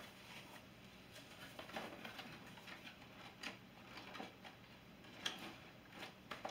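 Faint rustling and scattered light clicks of cardboard packaging and boxed LED light bulbs being handled, with one sharper click a little past five seconds in.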